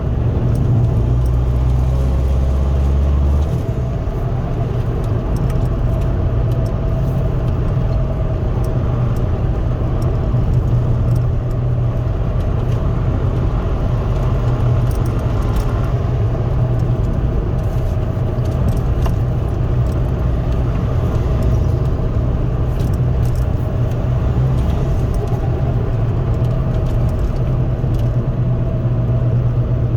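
Inside the cabin of a Mk2 Ford Focus 1.8 TDCi, its four-cylinder turbodiesel running steadily with road noise while the car is driven. A deeper drone underneath drops away about three seconds in.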